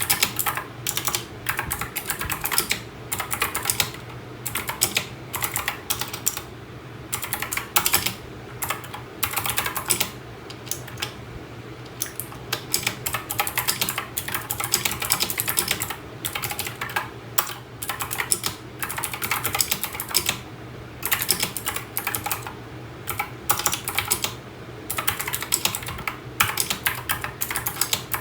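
Typing on a mechanical keyboard: quick runs of sharp key clicks in bursts, with short pauses between them.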